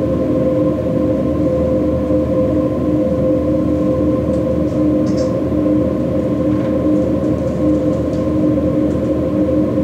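Ambient drone soundtrack: several steady held tones over a low rumble, with a few faint high clicks around the middle.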